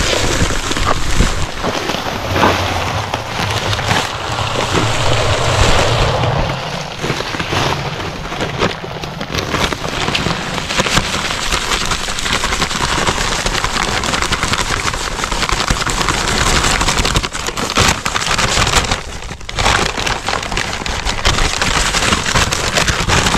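Dry concrete mix pouring from a paper bag into a post hole, a steady gritty rush of sand and gravel spilling onto the soil, with a brief lull about three-quarters of the way through.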